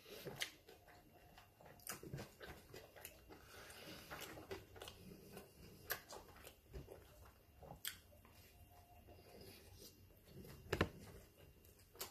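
A person eating a burger, with faint chewing and small wet mouth clicks and smacks scattered throughout. A sharper click about eleven seconds in is the loudest sound.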